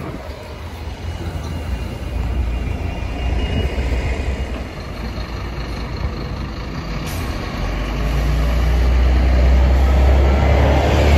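Articulated city bus engine running close by as the bus pulls away from the stop, the low engine rumble growing louder from about eight seconds in. A short hiss of air comes about seven seconds in.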